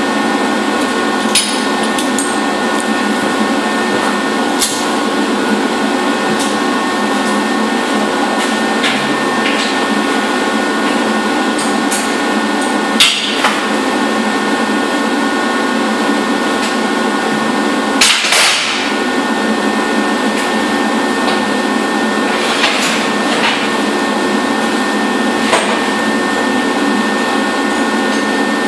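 Everlast Power Plasma 50 plasma cutter cutting steel plate: a steady hiss with faint steady tones, broken by a few sharp pops, the loudest a little under halfway through and again about two-thirds through. Its consumables are going bad, giving a rough cut.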